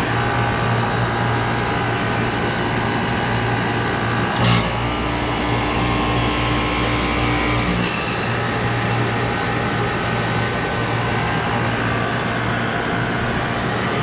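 Steady hum of running rooftop HVAC equipment, with several steady tones in it. About four seconds in there is a click, a deeper hum joins for about three seconds, and it stops with another click.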